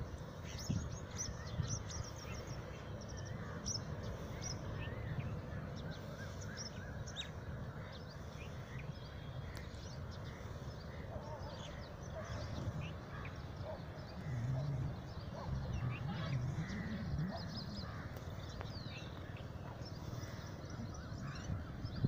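Many birds chirping and calling in short, scattered notes throughout, over a steady low rumble.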